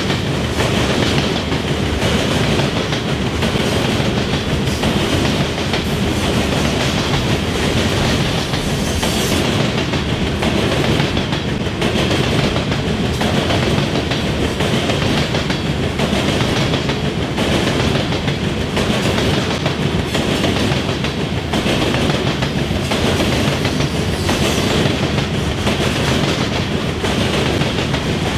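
Loaded coal hopper cars of a freight train rolling steadily across railroad diamond crossings, the wheels clattering over the crossing joints.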